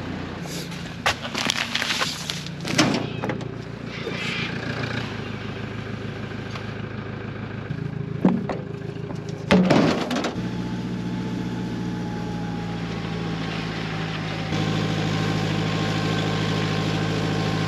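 A vehicle engine running steadily, with several sharp knocks and rattles in the first half. The engine note steps up twice, about ten seconds in and again near the end.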